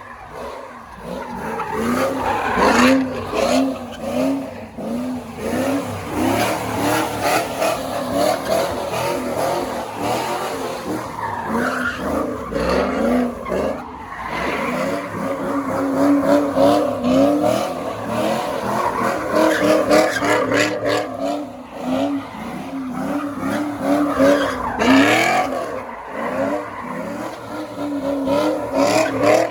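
A 2002 Pontiac Trans Am WS6's LS1 V8 is held at high revs while the car does donuts, its engine note wavering up and down. The rear tyres squeal and skid continuously throughout.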